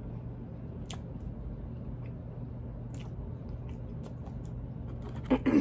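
A person quietly chewing a chicken nugget, with a few faint mouth clicks over a steady low hum, and a short voiced sound near the end.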